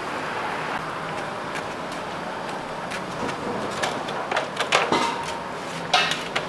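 Wooden A-frame chalkboard menu signs knocking and scraping as they are unfolded and stood on the pavement: a cluster of sharp wooden knocks about four to five seconds in and another near the end, over steady street noise.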